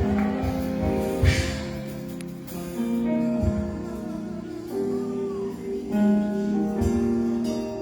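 Slow instrumental background music of held notes that change every second or so, with occasional low plucked bass notes.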